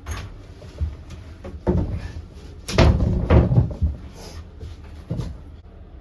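Sheet of 11/32-inch sheathing being set into place on a wooden bed frame: a series of irregular knocks and thumps, the loudest cluster about three seconds in.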